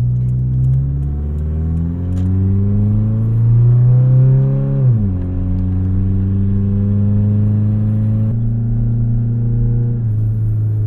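Toyota Camry's 2.2-litre 5S-FE four-cylinder running loud on open headers, its exhaust pipe knocked out of line with the header so the exhaust spits out into the engine bay. The engine climbs in pitch for about three seconds under acceleration, drops sharply at a gear change about five seconds in, then holds a steady drone.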